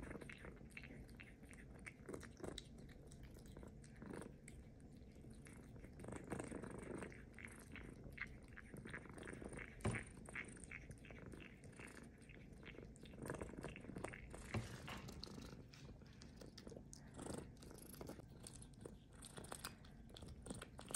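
Persian cat eating soft homemade meat-and-egg cat food from a glass plate: faint, irregular wet chewing and smacking with small clicks, one sharper click about ten seconds in.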